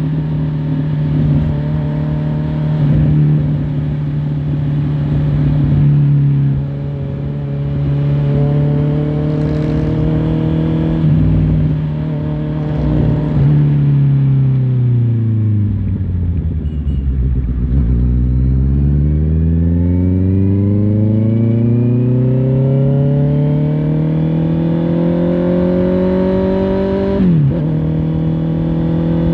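Honda CBR650R's inline-four engine running at a steady pace. About halfway through its pitch falls as the bike slows, then rises slowly as it accelerates again. Near the end there is a quick dip in pitch at a gear change.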